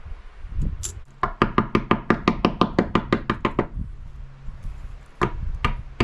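Thin steel strips clacking against each other as they are stacked into a layered Damascus billet: a quick even run of about fifteen sharp metallic clicks, roughly six a second, then two more clicks a moment later.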